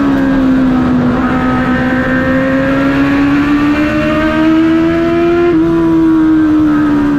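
Stock car engine heard from inside the cockpit under race load, running loud and steady. Its pitch dips slightly in the first second, then climbs slowly for several seconds, with a small hitch about five and a half seconds in.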